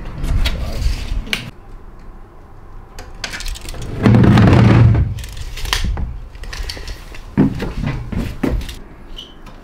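Handling noises in an empty van: clicks and knocks as a fibreglass gas box and a steel tape measure are handled, a loud scrape as the box is moved about four seconds in, then footsteps and knocks on the bare metal floor.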